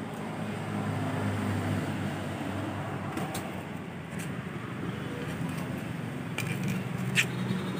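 A steady low motor hum, with several light clicks in the second half.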